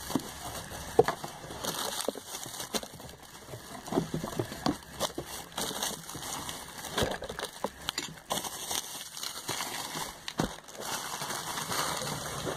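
Thin plastic bag rustling and crinkling in irregular bursts as small products are put into it, with scattered light clicks of packaging and one sharp click about a second in.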